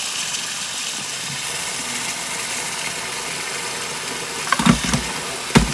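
Tap water pouring steadily from a faucet onto rice in a plastic colander in a stainless steel sink. A few dull knocks come near the end.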